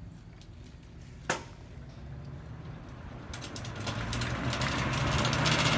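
Late-1990s Lasko box fan switched on with a single click about a second in, then its motor and blades spinning up: a low hum and a rush of moving air that grow steadily louder through the last couple of seconds.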